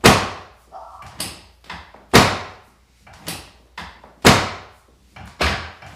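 Treatment table clacking loudly under the thrusts of a back adjustment: four sharp clacks about a second and a half to two seconds apart, each ringing briefly, with lighter knocks between them.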